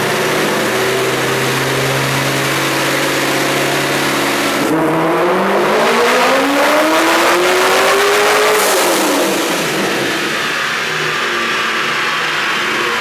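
Supercharged Corvette V8 on a chassis dyno: running steadily, then about five seconds in the revs climb steadily for about four seconds through a pull before the throttle closes with a short hiss and the engine drops back.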